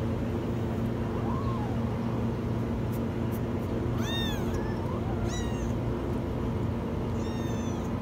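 Kittens meowing: several short, high-pitched meows, each rising and then falling in pitch, the loudest about four seconds in, over a steady low hum.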